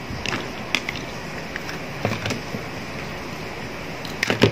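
Scattered clicks and knocks of plastic parts being handled and pried apart while an LED bulb is dismantled, with a louder cluster of knocks near the end.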